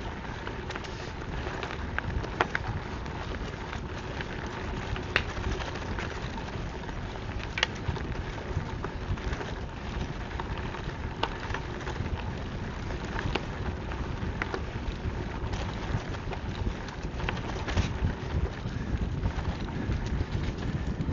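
Gravel bike tyres rolling over a dirt trail, with steady wind rumble on the microphone. Scattered sharp cracks and crackles run through it, which the rider takes for fallen nuts being crushed under the tyres.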